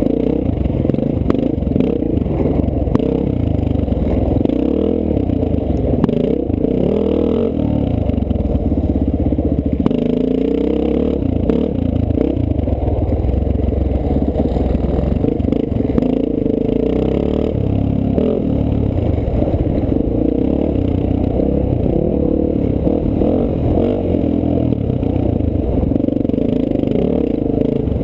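Dirt bike engine running close up, its pitch rising and falling as the throttle is opened and closed over a rough, rocky trail, with rattling and knocks from the bike.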